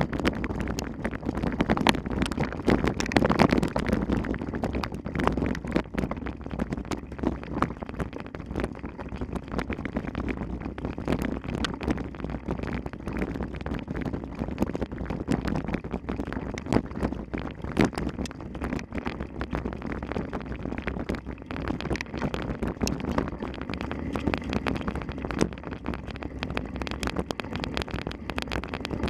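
Wind rushing over the microphone, with a constant rattle of small knocks and clatter from a mountain bike riding over rough trail.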